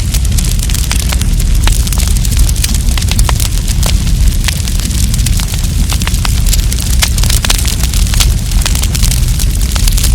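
Wood campfire burning, with many sharp crackles and pops at irregular intervals over a steady low rumble.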